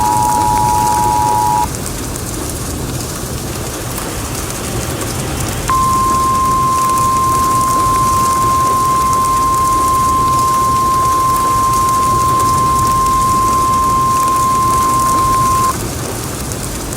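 The Emergency Alert System two-tone attention signal (853 and 960 Hz) ends about two seconds in. After a few seconds' gap, the single 1050 Hz NOAA Weather Radio warning alarm tone holds steady for about ten seconds and cuts off, announcing a tornado warning message. A steady hiss of rain noise runs underneath.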